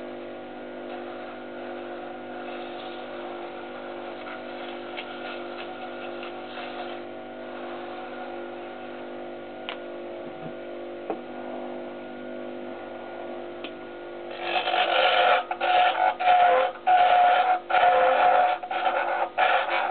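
Small wood lathe running with a steady hum, spinning a turned mahogany mushroom. About two-thirds of the way through, sandpaper is pressed to the spinning wood and a much louder sanding noise starts, broken by short gaps as the pressure comes and goes.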